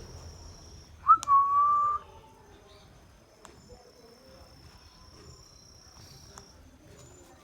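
Indian ringneck parrot giving a single clear whistle about a second in, lasting about a second: a quick upward swoop, then a held steady note.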